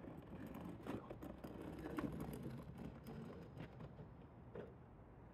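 Faint scraping with a few light clicks: an aluminium speed square is slid along the concrete curb with a Sharpie held in its notch, scribing a line across a cement backer board.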